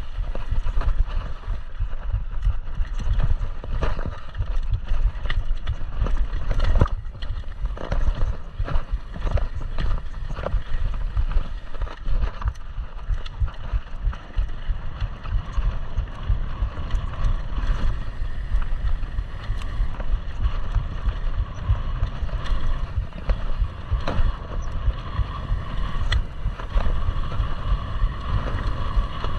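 Downhill mountain bike ridden fast over a dirt trail: a steady rush of wind buffeting the camera microphone, the tyres rolling over dirt, and frequent rattles and knocks from the bike over rough ground.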